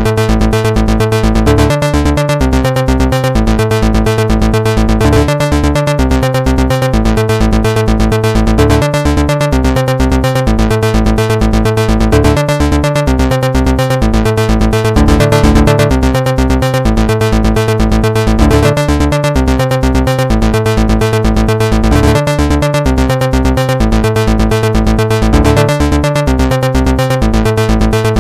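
Loud electronic dance music with a steady, fast bass-drum beat and synthesizer chords.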